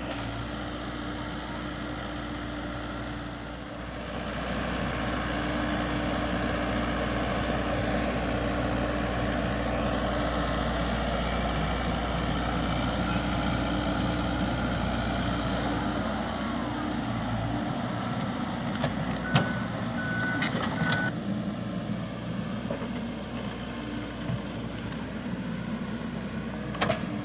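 Excavator's diesel engine running steadily, with a short run of high-pitched beeps about two-thirds of the way through.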